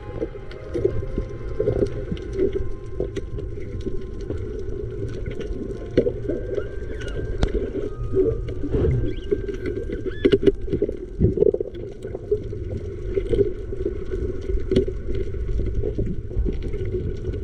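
Underwater sound picked up by the camera while diving on a shallow reef: a muffled, steady water rumble with many scattered sharp clicks.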